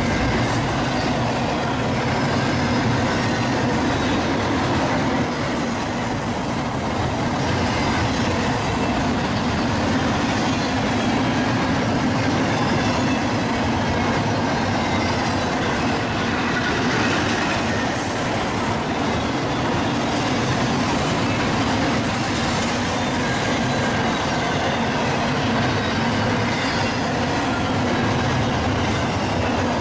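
Double-stack container train's cars rolling past: a steady rumble and clatter of wheels on rail. A brief high squeal comes about six seconds in.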